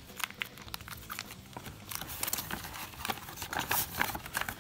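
Plastic ration bag and foil food packets crinkling and rustling as hands rummage through them, a busy run of small crackles that grows denser about halfway through.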